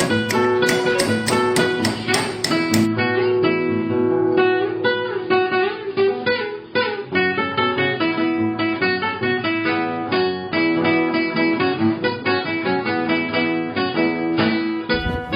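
Background music led by plucked acoustic guitar. A regular tapping, about three taps a second, runs through the first few seconds.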